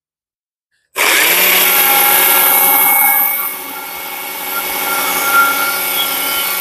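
Stihl MSA 140 C battery chainsaw with a carving bar starting suddenly about a second in and cutting into a tree trunk, a steady electric motor whine over the chain noise. It eases off for a moment near the middle, then bears in again.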